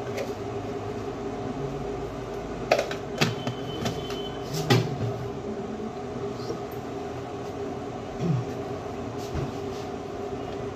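Steady mechanical hum in a kitchen, with a few sharp clicks and knocks about three to five seconds in as a plastic container and its lid are handled.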